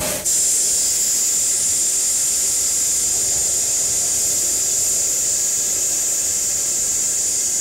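Air rushing out of a truck tyre through an Apex high-flow valve stem: a loud, steady, high-pitched hiss that starts a moment in. The tyre is being aired down from about 40 PSI toward 25 PSI for off-road driving.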